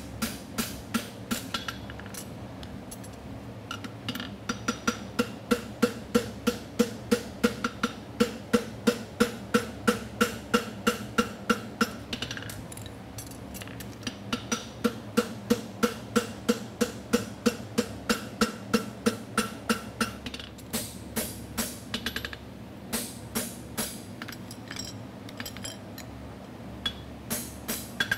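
Farrier's hammer striking a hot steel horseshoe on an anvil, about three ringing blows a second in long steady runs, broken by short pauses about twelve and twenty seconds in and sparser near the end. A Portacool fan hums steadily underneath.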